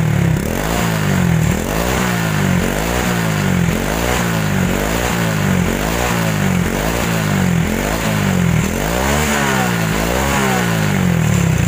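Motorcycle engine through an aftermarket Exos exhaust pipe fitted with two silencer inserts, the throttle blipped about once a second so the engine revs up and drops back ten or so times in a row.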